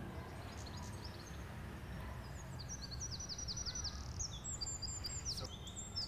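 Songbirds singing over a steady low outdoor rumble: a quick run of short, high, falling notes about two and a half seconds in, followed by more high notes near the end.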